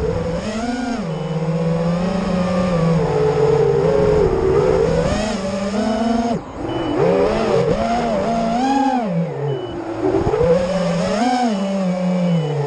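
FPV quadcopter's brushless motors and propellers whining, the pitch rising and falling constantly with throttle during freestyle flying, heard from the drone's own onboard camera. The sound briefly drops away about six seconds in as the throttle is cut, then picks up again.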